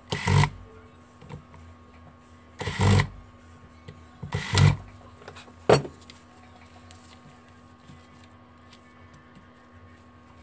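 Small electric screwdriver running in three short bursts, each under half a second, as it drives screws into a mobile phone's plastic housing. A sharp click follows a little past halfway, then light taps of plastic parts being handled.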